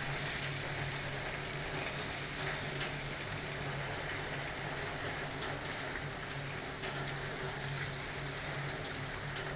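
Flour-coated Indian mackerel shallow-frying in hot oil on a low flame, a steady sizzle, with a few faint clicks of a spoon and spatula turning the fish. A low steady hum runs underneath.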